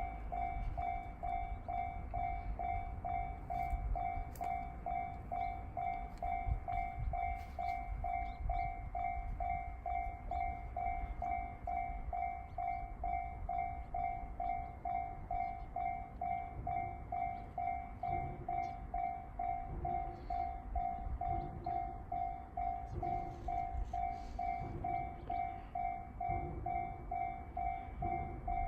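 Japanese level-crossing electronic warning bell (JR standard tone) ringing steadily, about two strokes a second, over the low rumble of a train passing on the line.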